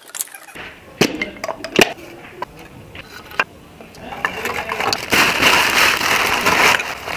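Wood blocks knocking together as they are stacked into a campfire pan: several sharp clacks over the first few seconds. About four seconds in, newspaper is crumpled and stuffed between the wood, rustling loudly for a couple of seconds.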